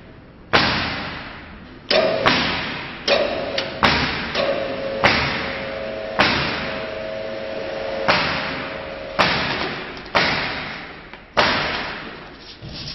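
PVC belt cutting machine being worked by hand: about a dozen sharp knocks at uneven intervals of roughly a second, each ringing out with a long echo, with a steady tone sounding through the middle stretch.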